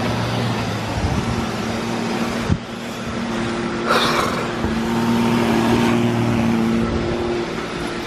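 Several robot vacuums running at once: a steady whir of suction motors and brushes with a low hum, and a sharp click about two and a half seconds in.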